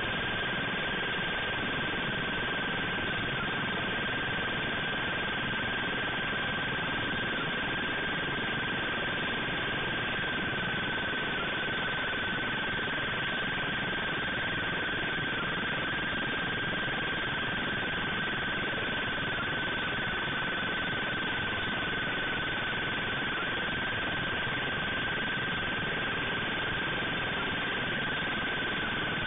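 Steady hiss with one continuous high-pitched whine that sinks very slightly in pitch, unchanging in loudness throughout.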